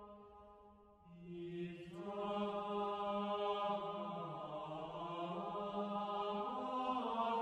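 Background music of slow chanting: voices holding long, steady notes that move from pitch to pitch in steps. One phrase fades out about a second in, and a new one swells in and carries on.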